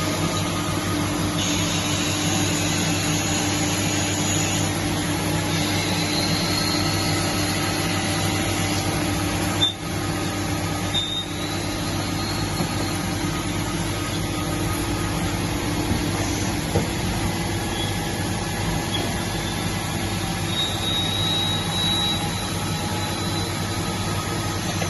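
Miyano BNE 51 SY CNC lathe running, a steady machine hum with faint high whines that come and go, one rising briefly about six seconds in and again near the end.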